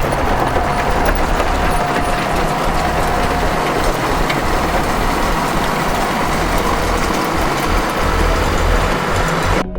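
Heavy diesel engine of a road grader running steadily. The sound cuts off abruptly near the end.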